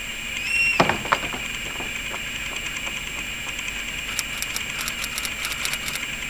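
Nitinol heat engine wheel turning on its axle, its wire springs passing through a tray of water. There is a brief squeak about half a second in, then a couple of sharp knocks, and a run of light rapid ticks near the end, all over a steady high hum.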